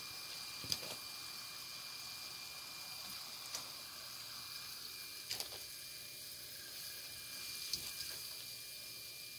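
Oliebollen dough fritters deep-frying in a pot of hot oil, giving a steady sizzle, with a few light clicks spread through it.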